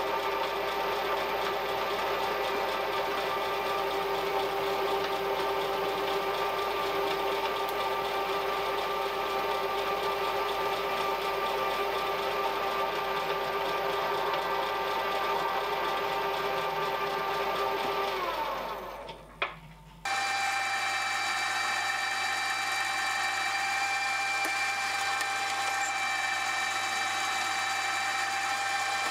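Vertical milling machine running steadily with a small drill bit, drilling holes in a steel part. About 18 seconds in the spindle winds down in pitch and stops with a click, then the machine is running again from about 20 seconds at a different pitch.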